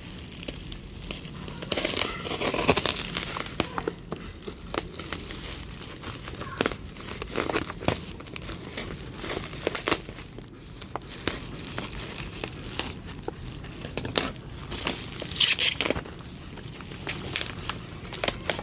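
Product packaging being handled and opened: irregular crinkling, rustling and tearing, with louder bursts about two seconds in and again near the end.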